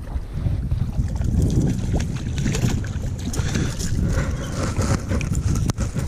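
Wind rumbling on the microphone aboard a fishing kayak, with scattered small knocks and one sharp click shortly before the end.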